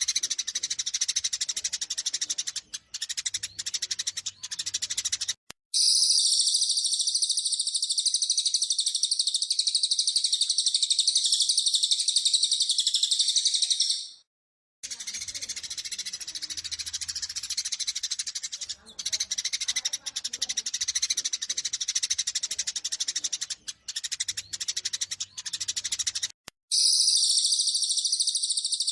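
Eurasian tree sparrows giving a busy fighting chatter of rapid chirps. Stretches of looser chirping alternate with louder, denser high-pitched chatter that cuts in abruptly about five seconds in and again near the end, with a short break at about fourteen seconds: edited, looped segments.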